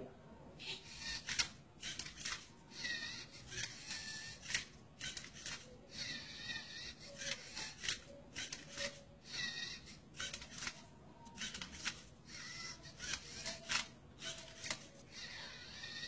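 A LEGO-built Rubik's cube-solving robot partway through a solve: its motors whir in quick short bursts, some with a brief rising-and-falling whine, as it turns and flips the cube, with the plastic cube layers scraping and clicking on each move.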